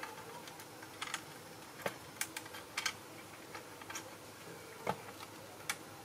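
Light plastic clicks and ticks from the mechanism of a Bandai steam road roller plastic model being worked by hand, irregular and unevenly spaced, with a few louder clicks in the middle and near the end.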